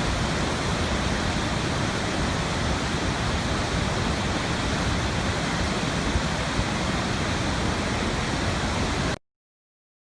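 A loud, steady, even rushing noise that cuts off suddenly about nine seconds in, leaving silence.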